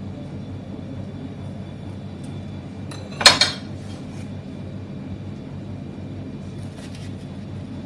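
Kitchen scissors set down with one sharp metallic clatter about three seconds in, over a steady low background hum and a few faint ticks of handling.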